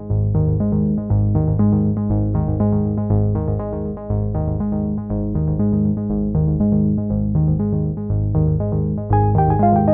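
Background music: a synthesizer and keyboard tune with a steady rhythmic bass, with higher notes coming in about nine seconds in.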